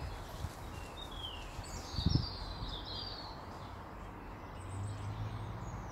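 Outdoor woodland background with birds chirping, mostly in the first half. A short low thump comes about two seconds in.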